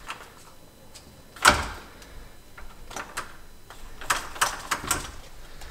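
Hotel room door handle and lock being worked without the door opening: one loud clunk about a second and a half in, a couple of lighter clicks, then a quick run of clicks and rattles near the end.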